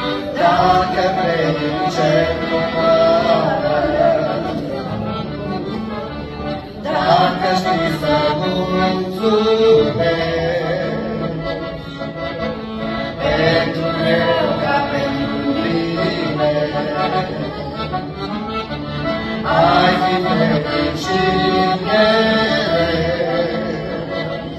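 Music from a worship song: an accordion carries a wavering melody in phrases over a steady accompaniment.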